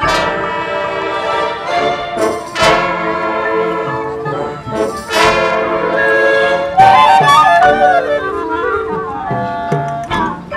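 High school marching band playing: full brass and woodwind chords with strong accented hits about every two and a half seconds, then a quick run of notes in the upper voices over sustained chords.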